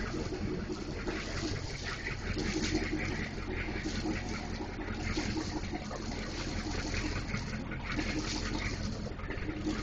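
Steady low mechanical hum under a rushing, splashing water noise.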